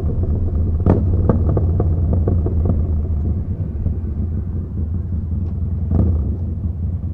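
Yamaha Bolt's air-cooled V-twin running through a Vance & Hines slip-on exhaust, a steady low note, with quick small ticks over the first few seconds and sharp clicks about a second in and again near six seconds.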